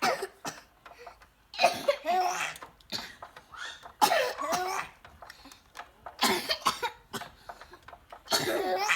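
A boy coughing on purpose in four separate bursts about two seconds apart, with a baby laughing at the coughs.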